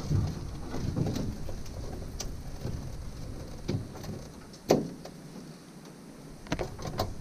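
Knocks and rattles of a mud crab pot being handled in an aluminium dinghy, with a sharp knock about halfway through and two more near the end.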